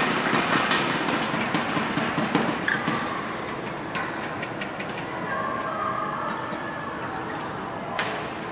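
Busy indoor crowd ambience: a steady hubbub of many distant voices and movement, with scattered sharp clicks and one sharper knock near the end.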